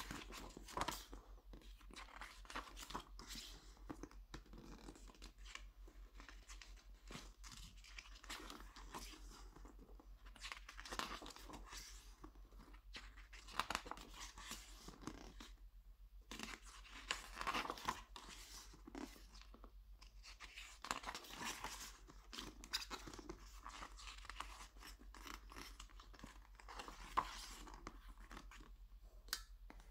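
Glossy photobook pages being turned and handled: irregular paper rustling and crinkling with soft flaps and taps as each page goes over.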